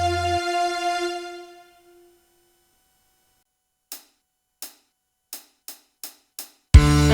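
Dangdut music from a single-keyboard arranger (orgen tunggal) ends on a held chord that dies away over about two seconds, followed by a short silence. Six short, crisp cymbal ticks then count in, spaced wide at first and then faster. The next song starts near the end with a loud full-band hit.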